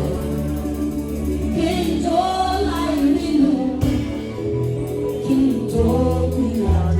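Gospel singing with a choir or congregation over a live band with a steady beat and bass.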